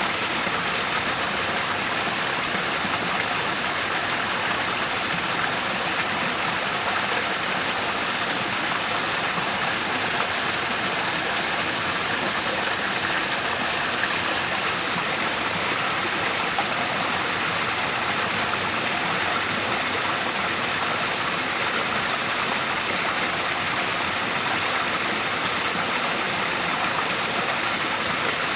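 Waterfall: a steady, even rush of falling and flowing water with no let-up.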